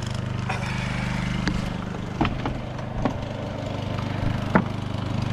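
Portable generator engine running at a steady idle-like hum, with a few sharp knocks and clatters over it, the loudest near the end.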